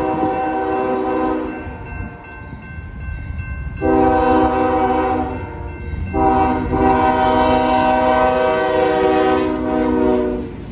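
CSX freight locomotive's air horn sounding for a road grade crossing as the train approaches: the end of one blast, a short blast about four seconds in, then a long blast held for about four seconds until the locomotive reaches the crossing. The diesel locomotives rumble underneath the horn.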